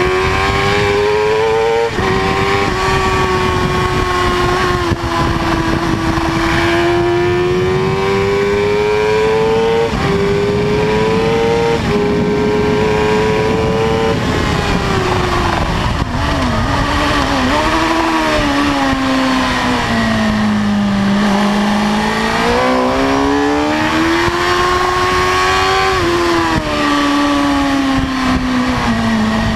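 Suzuki GSX-R600 K2's inline-four engine running hard on track, its pitch climbing and dropping sharply at each upshift, about four times. Midway it falls away under braking with quick blips on the downshifts, then rises again as it accelerates out of the corner, over steady wind noise.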